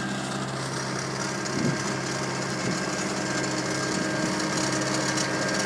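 Tractor engine running at a steady pace while pulling a carrot lifter through the carrot bed.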